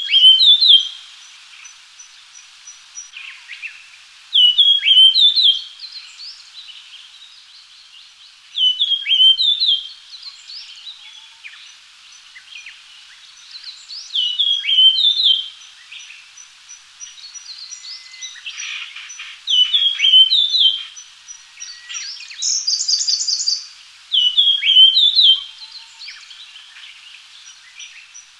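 Japanese grosbeak singing: short whistled phrases of a few sweeping notes, each about a second long, repeated about every five seconds. Between phrases a faint run of evenly spaced high ticks carries on, and a brief buzzy high call cuts in about four-fifths of the way through.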